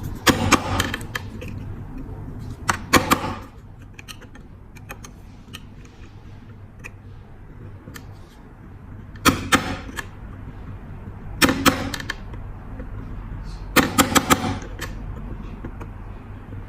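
Five short bursts of sharp metallic clicks and taps, each a run of several quick strikes, from hand work on a lighter's bent lid hinge.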